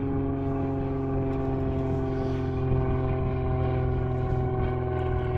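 An engine running at a steady speed, a constant droning hum that holds one pitch throughout.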